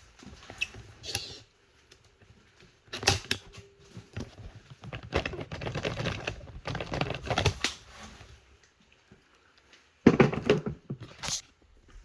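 Pipe crimping tool being worked onto a fitting on 3/4-inch pipe: irregular clicks and clatter in a few bursts, with short pauses between.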